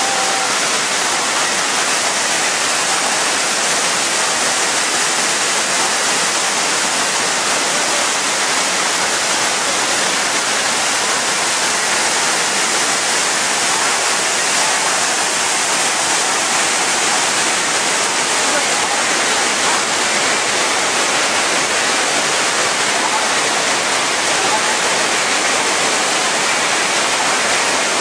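Hogenakkal Falls on the Kaveri River: heavy water pouring over rock ledges and churning below, a steady, loud rushing hiss with no breaks.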